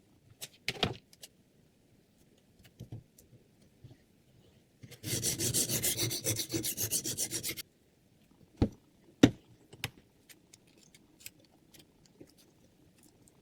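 Sharpening stone on a Hapstone R2 guided knife sharpener, rubbed rapidly back and forth along the blade edge in quick rasping strokes for about two and a half seconds near the middle. Scattered clicks and two sharp knocks surround the strokes.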